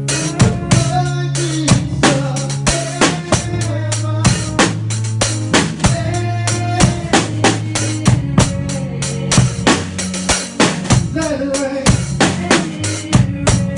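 Drum kit played along to a worship music track: a steady groove of kick drum, snare and cymbal strikes over sustained bass and keyboard notes.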